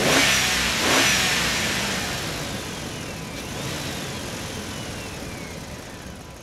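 Plastic toy mini truck's flywheel gearing whirring as it is pushed and rolls across a hard floor: a high whine that falls slowly as the truck coasts, with a rushing rolling noise. About three and a half seconds in it is wound up again, the whine rising quickly, then dying away.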